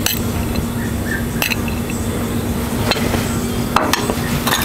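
A metal spoon clinking now and then against a ceramic plate and a steel pot as risotto rice is spooned into the pot, about five clinks in all, over a steady low hum.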